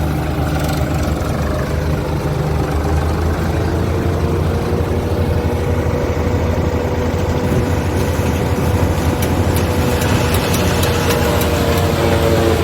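Maize silage harvesting machinery running steadily while chopping: a low engine drone with a steady whine above it. A fast rattle of small clicks joins in over the second half.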